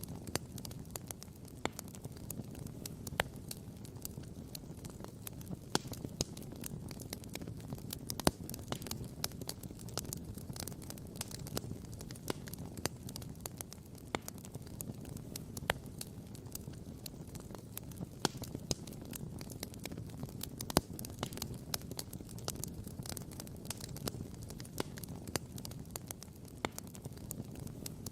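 Wood campfire crackling and popping: quick irregular snaps several times a second, with a few louder pops, over a steady low rush.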